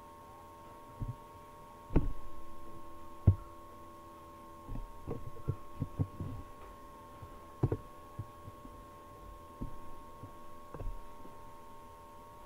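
Scattered low knocks and clicks of hands working a computer mouse and keyboard at a desk, the sharpest about two and three seconds in and a quick cluster in the middle, over a steady electrical hum with a few fixed tones.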